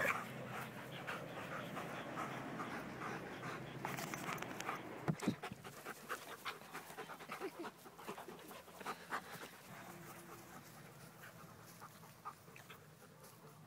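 Dogs panting as they play-wrestle, with short irregular scuffling noises, growing fainter toward the end.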